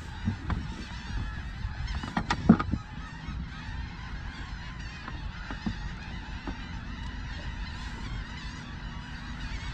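Wind rumbling on the microphone on an open deck, with thick fibre rope rustling and rubbing as it is drawn through a figure-eight knot. There are a few short knocks about two seconds in.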